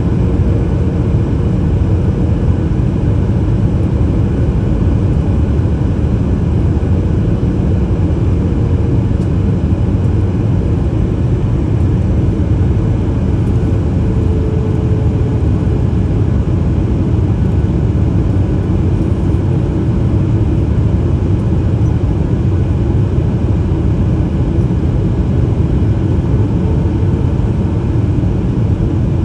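Steady cabin roar of a Boeing 737 MAX 8 on approach, from its CFM LEAP-1B turbofan engines and the airflow over the fuselage, with a faint steady tone running through it.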